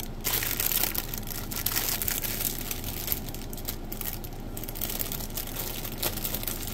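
Clear plastic bag of silicone flower beads crinkling as it is handled and rummaged through, a run of small crackles.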